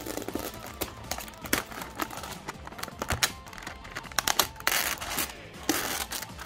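Clear plastic wrap crinkling and crackling as it is peeled and pulled off a boxed toy carrying case, with louder crackles about five seconds in and again near the end.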